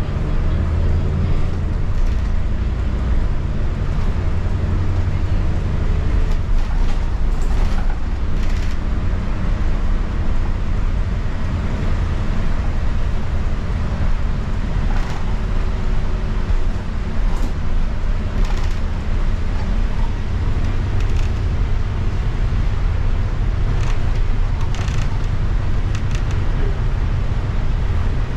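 Steady low drone of a city bus's engine and road noise, heard from inside the passenger cabin, with a few short clicks or rattles along the way.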